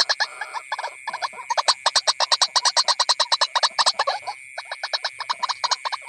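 Animal calling in a rapid, rhythmic series of pulses, about ten a second, with brief breaks, over a steady high-pitched tone.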